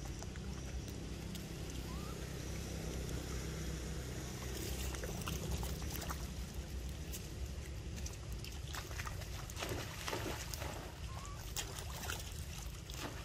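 Muddy floodwater flowing and sloshing, with scattered small splashes as a monkey wades and swims through it; the splashes come thicker in the second half.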